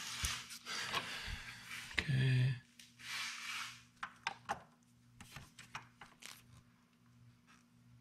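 Hand work on a motorcycle's brake-pedal mount: rustling and scraping, a brief low hum about two seconds in, then a run of small light clicks and taps.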